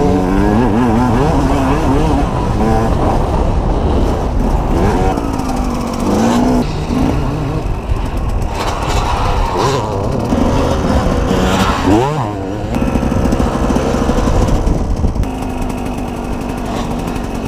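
Two-stroke KTM EXC enduro bike engine revving up and down while being ridden on a dirt track, with a sharp rev about twelve seconds in. After that it settles to a steadier, lower note as the bike slows.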